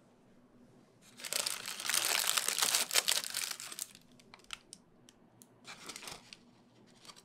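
Baking parchment crinkling loudly for about three seconds as a baked paper parcel is pulled open by hand. It is followed by a few light clicks and softer paper rustles as the salmon inside is handled with metal tongs.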